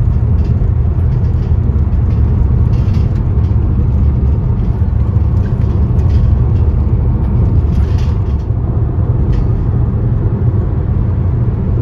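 Steady low road and engine rumble inside the cabin of a car driving along a country road.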